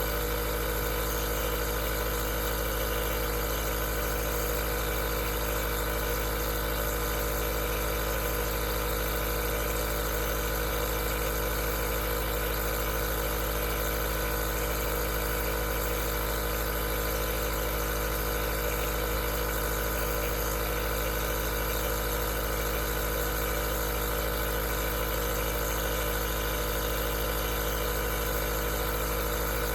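Aerosol nebulizer's compressor running steadily: an even mechanical hum with several held tones over a hiss, unchanging.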